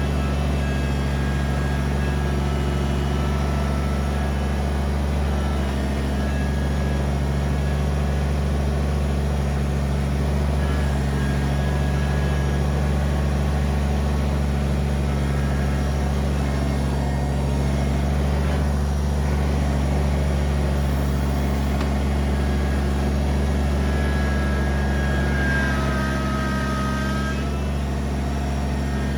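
Kubota BX23S sub-compact tractor's three-cylinder diesel engine running steadily under work, with short high whines coming and going, a few of them stronger near the end.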